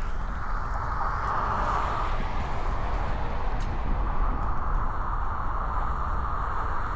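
Wind buffeting the microphone in a constant low rumble, with a hiss that swells twice.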